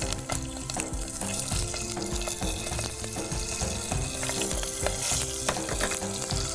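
A tempering of slit green chillies, curry leaves and mustard, fenugreek and coriander seeds frying in hot oil in a pot, sizzling steadily with a scatter of sharp crackles.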